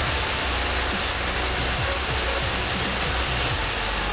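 Kärcher K3 electric pressure washer running, its jet spraying water onto a paved floor: a steady, loud hiss with the pump motor's low hum beneath.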